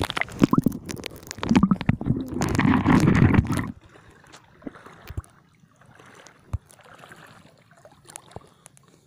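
Shallow seawater sloshing and gurgling close to the microphone for about the first three and a half seconds, then it drops off to a much quieter stretch with a few small knocks.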